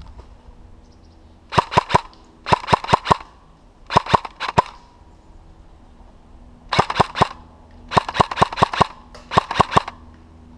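Airsoft gun firing six short bursts of three to six rapid shots each, with pauses of about a second between bursts.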